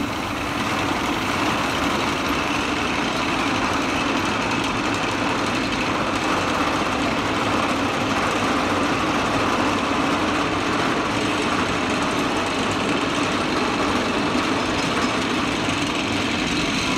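Roller coaster lift hill chain and its drive running steadily as a train is hauled up: an even, continuous mechanical hum and rattle.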